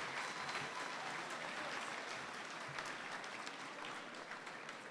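Large audience of students applauding in a big hall, the clapping slowly dying down.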